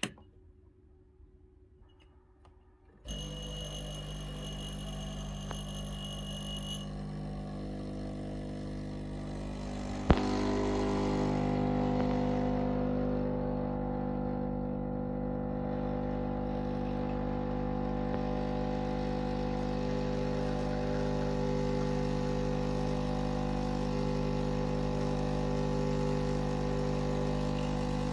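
Espresso machine pump humming as it pulls a shot. It starts suddenly about three seconds in with a softer hum, the low-pressure pre-infusion stage, then a click about ten seconds in, after which the hum runs louder and steady at full brewing pressure.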